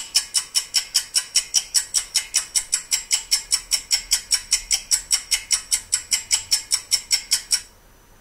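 A clock ticking, an even run of sharp ticks at about five a second, which stops about seven and a half seconds in.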